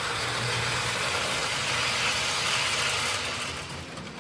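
O scale model train running on the layout's track: a steady rumble of wheels and motor that grows louder about two to three seconds in, then fades as the train passes.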